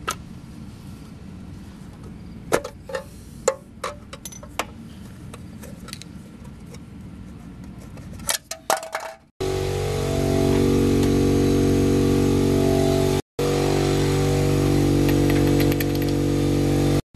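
Light metal clicks and clinks of hand tools on a truck's alloy wheel as the center cap is pried off and a lug-nut socket is fitted. About nine seconds in, a loud, steady motor drone of constant pitch starts suddenly and cuts out briefly once.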